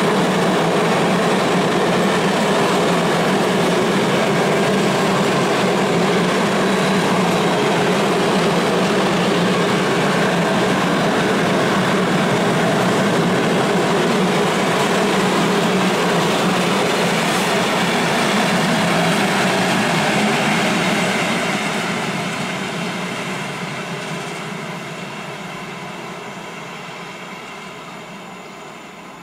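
A long freight train of coal-laden open wagons rolling past on the track with a steady rumble and rattle of wheels. The noise fades away from about 21 seconds in as the last wagons pull off into the distance.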